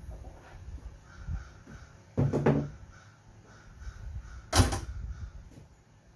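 A hammer striking a block of wood held against a car's hood, one sharp whack a little past halfway that knocks the dent out. A weaker knock with a short ring comes about two seconds in.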